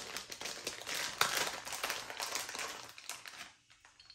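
Fizz drops (carbonation tablets) being handled in a small plastic pack and dropped into glass beer bottles: a rapid patter of small clicks and rustling that stops about three and a half seconds in.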